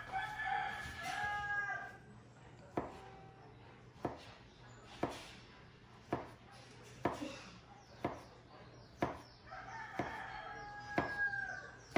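Chef's knife slicing a banana on a cutting board, the blade knocking the board about once a second. A rooster crows twice, once at the start and again near the end.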